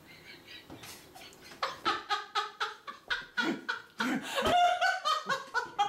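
Hearty laughter in short repeated bursts, starting about one and a half seconds in and growing louder toward the end.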